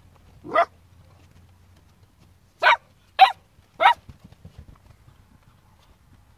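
Cocker spaniel puppy barking in four short yaps: one shortly after the start, then three in quick succession about two seconds later.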